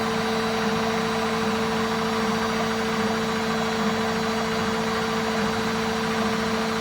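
Washing machine on its spin cycle, its drum turning at speed with a steady humming whine.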